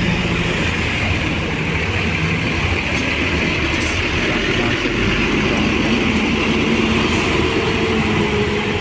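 Diesel engine of a large coach bus running as the bus drives slowly past and pulls away. It is a steady low rumble with a constant hiss on top, and a steady hum joins in about halfway through.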